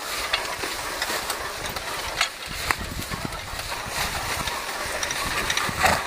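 Horse-drawn riding cultivator pulled by a team of draft horses through corn rows: a steady scraping, rustling noise with a few scattered sharp clicks.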